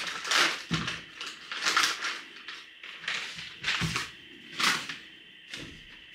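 A crinkly bag rustled and handled in a series of short bursts, with light knocks, while a fire is being laid in a fireplace.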